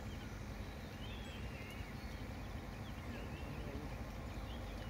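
Wild birds chirping and calling in short, scattered notes over a steady low rumble.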